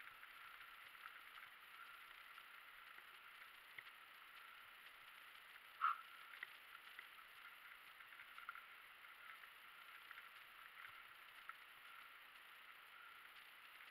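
Near silence: faint, muffled riding noise from a Rossignol E-Track Trail electric mountain bike on a gravel and grass track, with scattered light ticks and rattles over a faint steady whine, and one louder knock about six seconds in.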